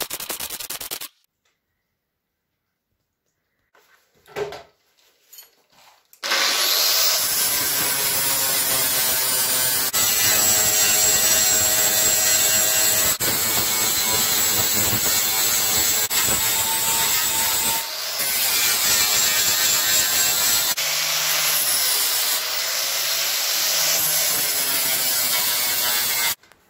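Angle grinder grinding down welds on a steel door frame, starting about six seconds in and running for about twenty seconds. Its whine wavers in pitch as the disc bites and eases. Before it, there is a second of welding arc crackle at the very start, then a pause.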